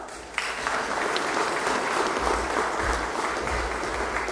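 Audience applauding, swelling sharply about half a second in and then holding steady.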